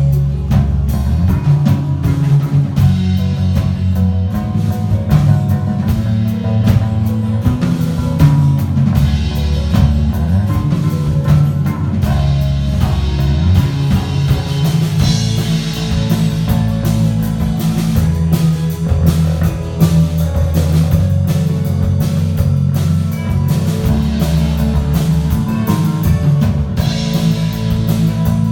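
Live band music: guitar and drums playing a song with a steady beat.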